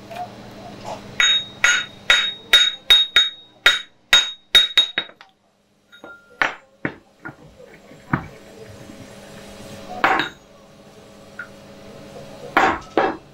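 Hammer striking a freshly welded steel shaft: about a dozen quick, ringing metal blows, then after a short pause scattered metal knocks and clinks, with a heavier knock about ten seconds in and two more near the end.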